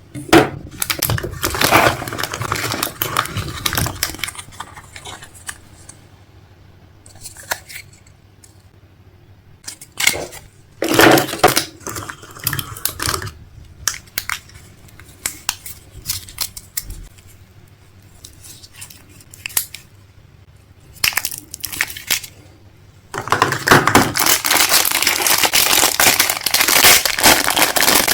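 Crinkling, crushing handling noises in several irregular bursts, becoming a continuous crackle for the last few seconds.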